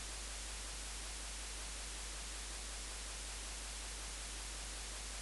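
Steady hiss of a recording's background noise with a constant low hum underneath; nothing else happens.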